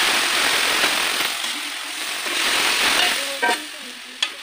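Frying chicken sizzling loudly in a metal kadai as a ladle of liquid is poured in. The sizzle dies down after about three seconds, then a short metal clank of the ladle on the pan and a sharp click near the end.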